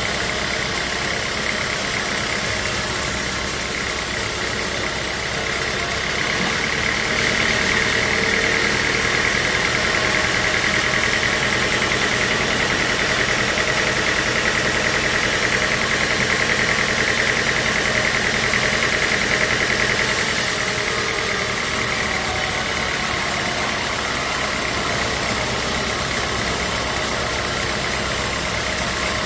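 Sawmill machinery running steadily. The sound grows a little louder and hissier from about six seconds in until about twenty seconds in.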